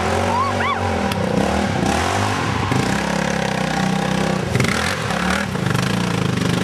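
Sport quad bike's engine running and revving up and down as it pulls through mud.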